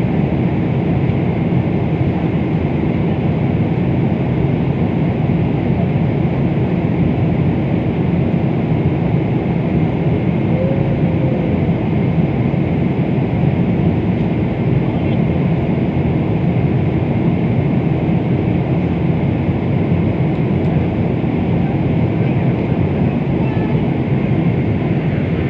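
Steady airliner cabin noise in cruise flight: the even, deep hum of engines and airflow heard from a passenger seat, unchanging throughout.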